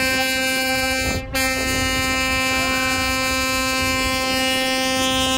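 A boat's horn sounding one long, steady blast at a single pitch, broken off briefly about a second in.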